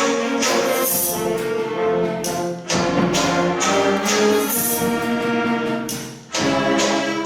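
Symphonic wind band playing sustained, full chords with brass prominent, in phrases broken by two brief pauses.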